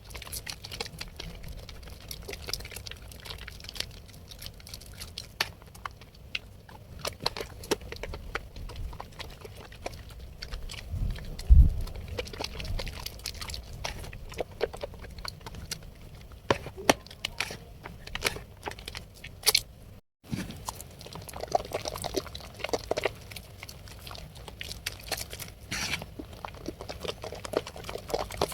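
Blue Medicare bar soap being lathered: a dense run of wet squishing and crackling foam. There is one dull bump just before the middle and a brief break in the sound about two-thirds through.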